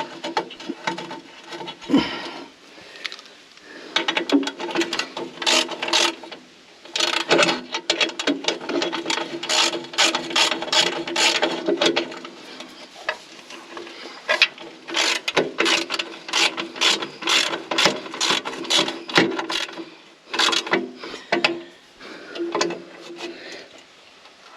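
Hand ratchet wrench clicking in repeated runs of rapid ticks with short pauses between, as a bolt is run in and tightened.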